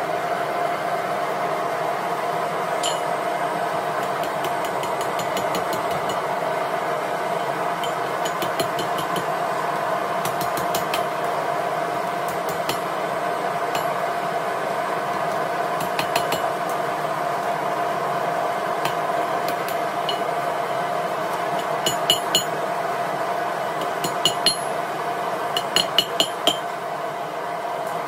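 Steady hiss of a propane gas forge burner, with a constant hum in it. Over it, a hammer strikes hot steel on the anvil in short clusters of light, ringing taps, which come more often over the last few seconds.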